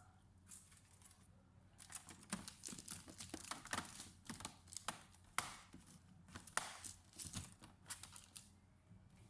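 Irregular run of small clicks, taps and rustles, like hands handling small hard objects, starting about two seconds in and dying away near the end, over a faint steady hum.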